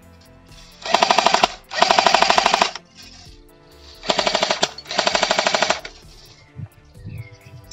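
A&K PKM airsoft electric machine gun firing four short full-auto bursts in two pairs, each a fast, even rattle of shots.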